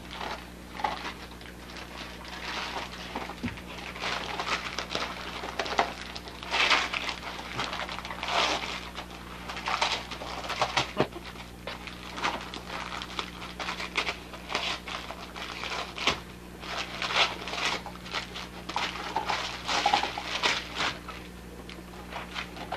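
A dog rooting through torn, crumpled wrapping paper, the paper crinkling and rustling in irregular short bursts.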